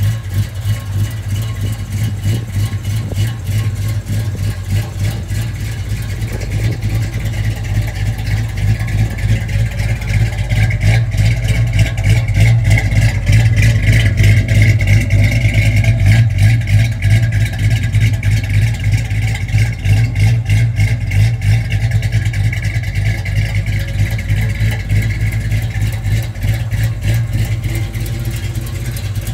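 1973 Dodge Charger's engine idling steadily with a deep, even exhaust pulse. It is loudest in the middle stretch, heard close behind the rear bumper at the tailpipes.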